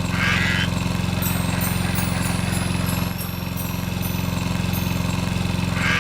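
A steady, low, buzzing motor drone with a rapid even pulse.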